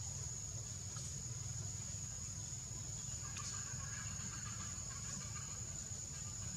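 Outdoor ambience: a steady high-pitched whine over a low rumble, with a faint chirping sound from about three seconds in to near the end.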